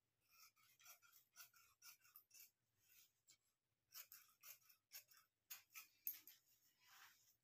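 Tailor's shears cutting through blouse fabric: a run of faint, crisp snips at uneven intervals, some in quick clusters.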